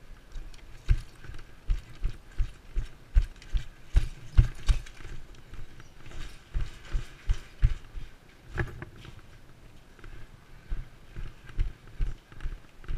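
Footsteps of the camera wearer, heard as low thuds about two or three a second, stopping briefly twice before going on.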